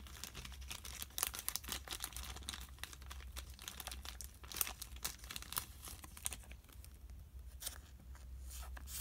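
Trading cards and a clear plastic card sleeve being handled, with soft crinkling and rustling and scattered light clicks.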